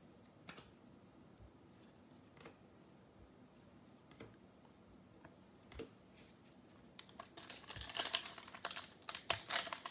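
A few faint clicks as trading cards are slid and flipped in hand, then from about seven seconds in, steady crinkling and tearing as a foil-wrapped 2021 Bowman mega box card pack is ripped open.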